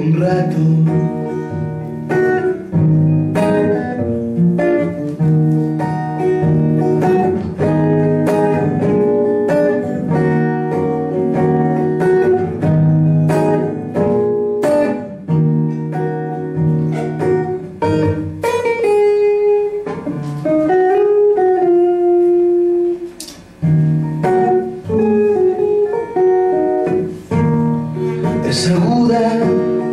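Acoustic guitar strummed in a steady rhythm, played live.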